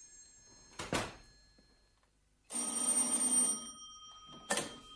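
Telephone bell ringing once for about a second, its tone fading out after. A knock comes about a second in, and a click near the end.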